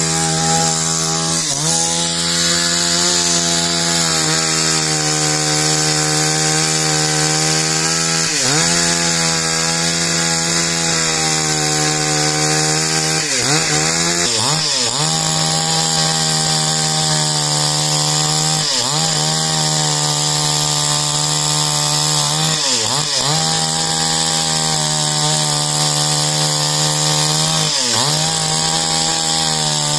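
Gas chainsaw running at high revs, ripping lengthwise along a log to trim off the rough bark edge. Its pitch drops briefly and recovers about seven times as the chain loads up in the wood.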